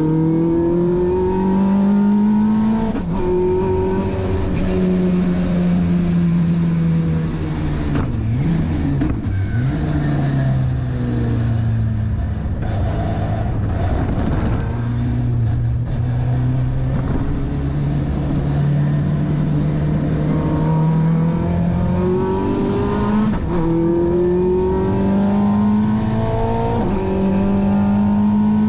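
Vauxhall 2.3-litre XE four-cylinder race engine on individual throttle bodies, heard from inside a Toyota Starlet KP61's cabin while lapping a circuit. The engine note falls under braking, with a couple of sharp dips about eight to nine seconds in. It runs low and steady through a slow corner, then rises in steps, dropping back at each upshift as the car accelerates hard.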